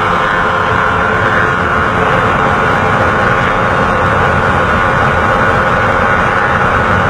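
Single-cylinder 150 cc underbone motorcycle engine running hard at speed, heard from the bike itself, its pitch dipping slightly and rising again, under heavy wind rush on the microphone.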